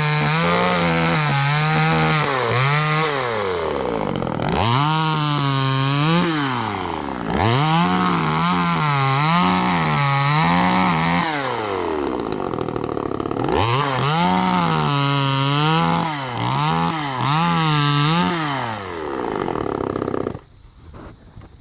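TimberPro CS2500 26cc two-stroke top-handle chainsaw running and cutting brush. It revs up and down over and over, in quick throttle blips and longer revs, and cuts off near the end.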